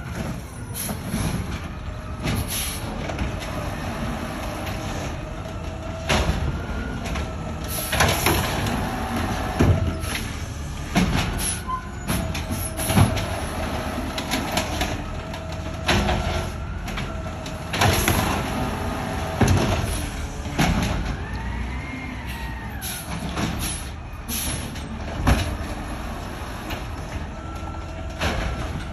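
Automated side-loader garbage truck working bins: the diesel engine runs steadily under a steady whine from the hydraulics as the side arm lifts and tips wheeled bins, rising and falling once about two-thirds of the way through. Several loud bangs and clatters come at irregular intervals as bins knock against the truck and trash drops into the hopper.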